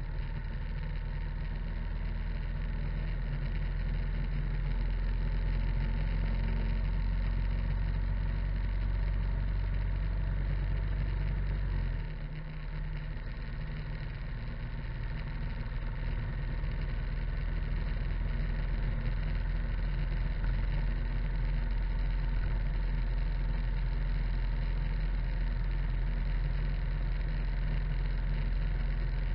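Harley-Davidson motorcycle running at cruising speed on the road: steady engine sound mixed with wind and tyre noise, picked up by a camera mounted low beside the front wheel. The sound dips briefly about twelve seconds in, then carries on steadily.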